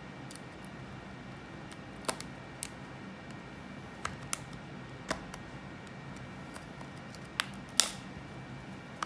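Sharp, irregular clicks of a metal spudger prying at the seam between an iPod Classic's front case and metal rear plate, about eight in all, the loudest near the end, over a low steady hum.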